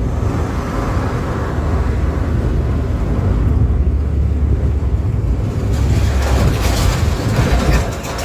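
Front-engined intercity bus with a 'ngorok' (snoring) exhaust, giving a deep, steady rumble. A rushing noise rises about six seconds in.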